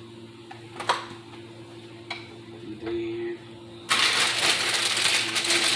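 A few light clicks, then about four seconds in a loud, steady crinkling of a plastic bag of dry pasta noodles being handled over the pot.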